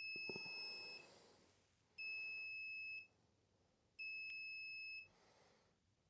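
Sunlu FC-01 filament connector's electronic beeper sounding three one-second beeps, about two seconds apart, signalling the end of the filament-welding heat cycle. Some light handling noise sits under the first beep.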